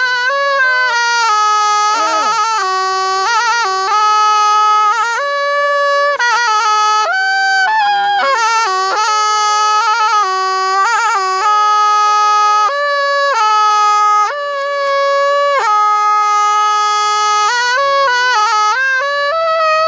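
Thai pi, a quadruple-reed oboe, playing an unbroken solo melody: held notes with wavering ornaments and trills alternate with quick runs of notes, with no pauses for breath.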